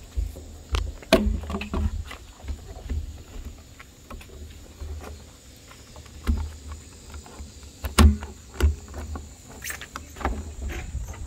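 Corded jigsaw running, its blade sawing through the top of a 55-gallon plastic drum: a low steady buzz with irregular knocks and clicks, the loudest about a second in and near 8 seconds in.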